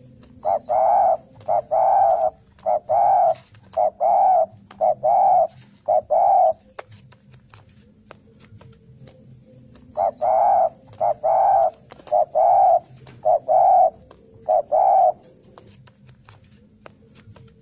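Spotted dove (derkuku) cooing in two bouts of rapid repeated coos, each lasting about five to six seconds: one starting just after the beginning, the other about ten seconds in. This is the 'narung' call, a challenging call given while seeking a rival.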